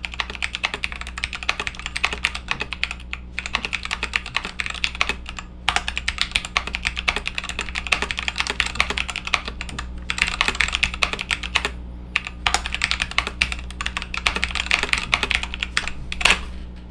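Fast typing on a mechanical keyboard with OEM-profile keycaps, a dense run of key clicks broken by a few short pauses, during a typing test.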